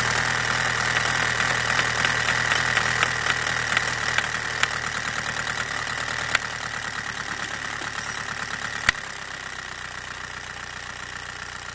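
Volkswagen 1.9 TDI diesel with a rotary injection pump, idling with diesel clatter, its pump's fuel-quantity adjuster set too rich. Two sharp knocks stand out, about six and nine seconds in, and after the second the engine sound becomes a little quieter.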